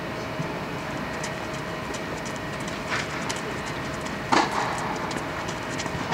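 Steady hum of an inflatable tennis dome's air blower, with scattered light clicks and one louder knock about four and a half seconds in.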